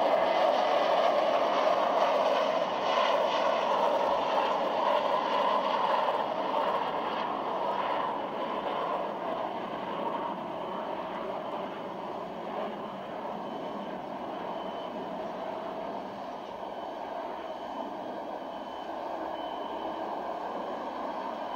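Saab 340A twin-turboprop airliner flying low overhead: a steady rush of engine and propeller noise that slowly fades.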